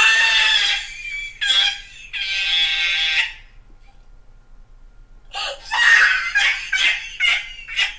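A high, raspy squawking sound in two stretches over the first three seconds or so, then a run of short laughing bursts near the end.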